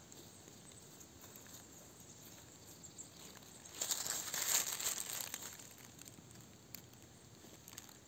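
Dry fallen birch leaves rustling and crackling for about a second and a half, starting about four seconds in.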